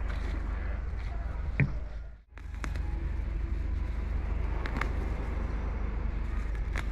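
Steady low outdoor rumble with light clicks and rustles of weeds being pulled by hand, a sharper click about a second and a half in. The sound drops out briefly a little after two seconds.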